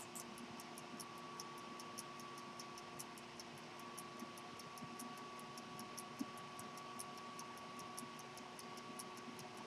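Antique gold jumping-seconds pocket watch movement ticking faintly and steadily, its escapement giving about five light ticks a second.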